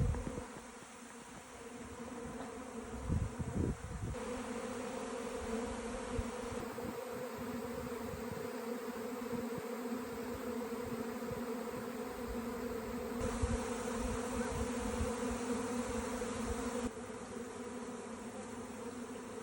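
A honeybee swarm buzzing steadily, a dense continuous hum, with a few low thumps about three seconds in.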